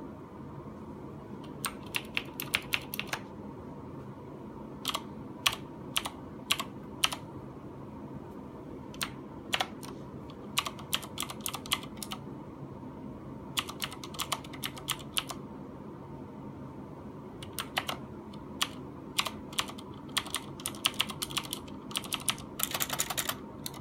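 Typing on a keyboard fitted with NKEY PBT doubleshot keycaps: bursts of key clicks separated by short pauses, ending in a fast flurry of keystrokes.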